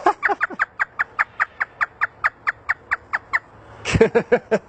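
African grey parrot imitating a hysterical human laugh: a fast run of about twenty short, sharp 'ha' notes, each falling in pitch, lasting about three and a half seconds, then a few more laugh-like syllables near the end.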